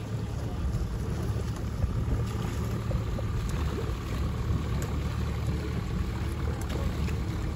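Boat engine running steadily at low speed, a low hum throughout.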